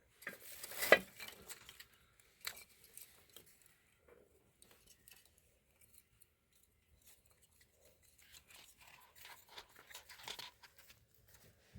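Scattered light knocks and clinks of small hard objects being handled. The sharpest knock comes about a second in, and a busier run of small clicks comes near the end.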